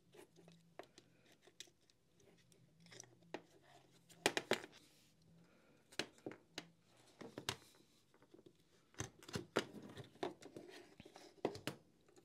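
Faint clicks, taps and rustles of hands handling small parts: a cordless heat gun's circuit board, wires and heating element being pulled out of its plastic housing and set down, with a few louder clusters of clicks along the way.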